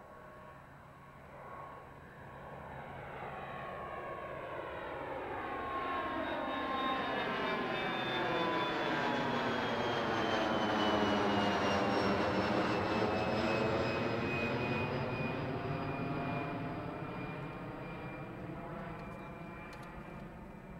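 A Bombardier CRJ200 jet climbing out after takeoff and passing overhead, its twin rear-mounted GE CF34 turbofans growing steadily louder to a peak about halfway through, then fading. The engines' high whine falls in pitch as the jet goes by, over a sweeping, phasing jet rush.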